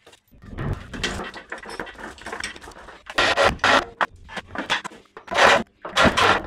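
Handling noise of rustling and scraping as wiring and tools are worked by hand, in uneven bursts, with several louder scrapes in the second half.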